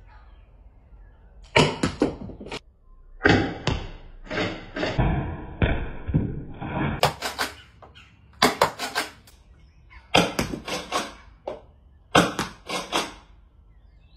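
Modded Nerf Rival Takedown pump-action blaster, fitted with an upgraded spring, being primed and fired again and again: about seven bursts of two to four sharp plastic clacks from the pump slide and plunger firing.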